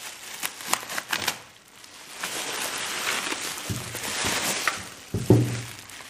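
Bubble wrap crinkling and crackling as it is pulled off a Rotax 582 exhaust rear silencer, with sharp pops early on. Then the hollow silencer knocks down onto a wooden workbench twice, the second knock the loudest.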